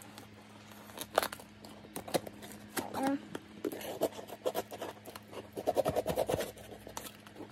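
A knife blade slitting packing tape along the seams of a cardboard shipping box: a run of short scrapes and clicks as the tape is cut.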